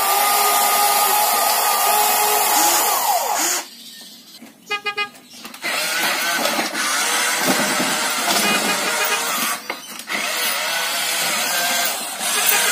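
Remote-control toy vehicle's small electric motor whirring, stopping after about three and a half seconds; in the pause a short pitched toy horn honks, then the whirring starts again.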